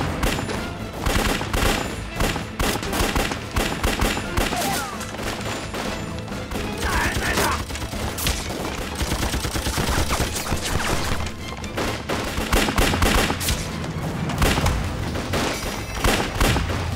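Dense gunfire from a staged firefight: pistol and rifle shots overlapping, several to the second.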